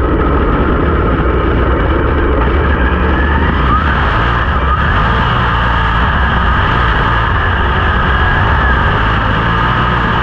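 Dirt late model race car engines running on a dirt track: a loud, steady drone with a faint whine that wavers up and down in pitch.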